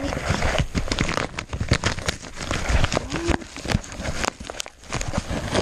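A plastic or padded mailing package being handled and pulled open by hand, giving irregular crinkling and crackling with tearing noises.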